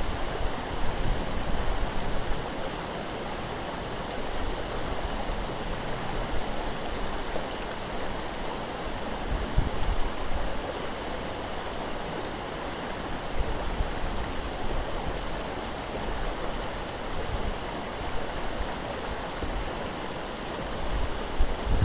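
River water rushing steadily, with gusty wind buffeting the microphone.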